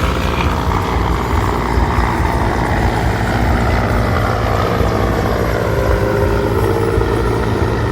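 Military helicopter flying overhead: steady rotor and engine noise with a low rumble, its turbine whine sliding slowly down in pitch midway as it passes.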